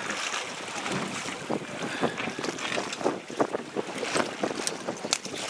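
Wind buffeting the microphone over the sea washing against a small boat, with a run of sharp clicks and knocks in the second half.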